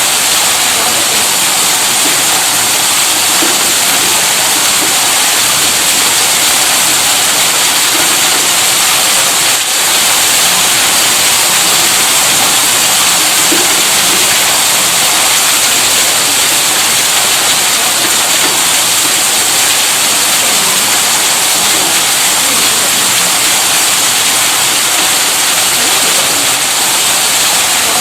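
Steady, loud rush of water, as from a tube well's electric pump discharging its flow, with no change throughout.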